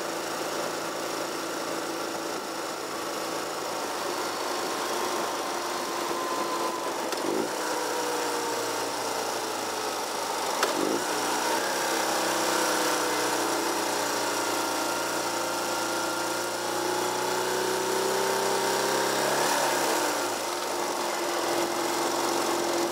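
Car engine and road noise heard from inside a moving car's cabin. The engine's pitch slides and shifts a few times as the car drives on.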